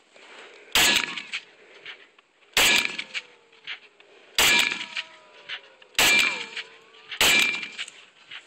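Saiga AK-pattern rifle in 7.62x39 firing five single, deliberately spaced semi-automatic shots, roughly one every one and a half to two seconds.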